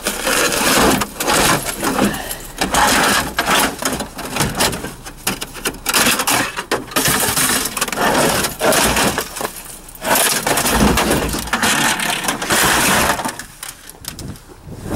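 Rummaging through discarded electronics in a steel dumpster: hard plastic cases and metal parts knocking, scraping and clattering against each other and the dumpster wall, in a dense run of bangs and scrapes that eases off near the end.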